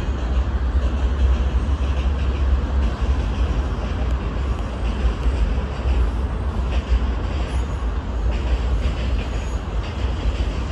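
CSX freight train's boxcars rolling past, a steady rumble of wheels on rail with no let-up.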